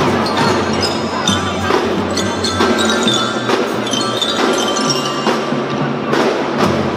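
Kindergarten drum band playing: a steady beat of drums under bright, ringing mallet-percussion melody.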